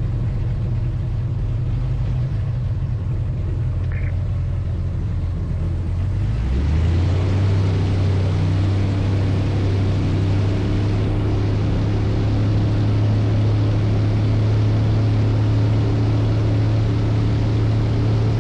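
Airboat engine and fan propeller running at a low speed, then revving up to a higher, louder steady speed about six seconds in.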